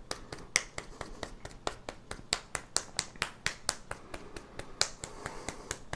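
Quick, even tapping of fingertips on a bare forearm, several light slaps a second, as percussive qigong self-massage is worked along the arm.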